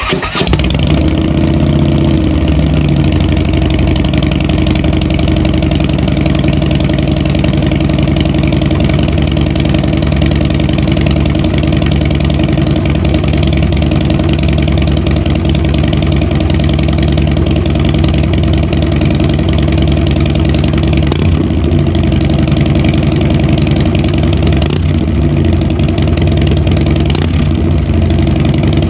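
2015 Harley-Davidson Dyna Wide Glide's 103 cubic-inch V-twin, breathing through Vance & Hines 3-inch slip-on mufflers, starts up, flares briefly in speed and settles into a steady idle.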